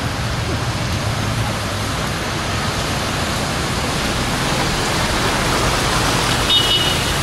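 Toyota pickup truck driving through deep floodwater, its wheels throwing up a steady rush of splashing spray, over the low sound of its engine. The rush grows a little as the truck comes closer.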